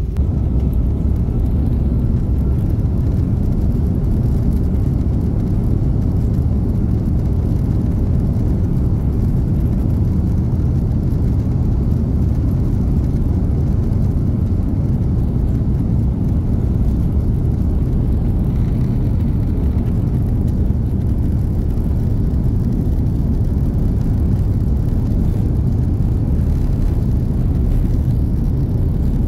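Airbus A330 airliner cabin noise: a steady, loud, low rumble of engines and airflow, unchanging throughout.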